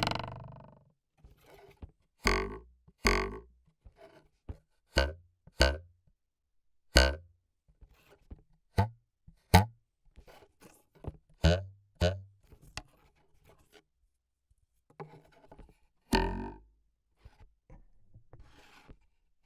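Foley props (sticks, spoons, wires) struck one at a time for cartoon sound effects: about twenty sharp, separate hits at an uneven pace, many leaving a short pitched ring, with a brief pause two thirds of the way through.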